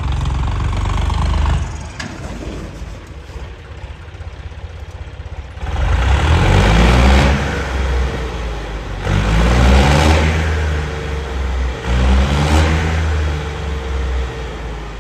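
Indo Farm tractor's diesel engine running and revved hard three times, its pitch rising with each rev before it drops back.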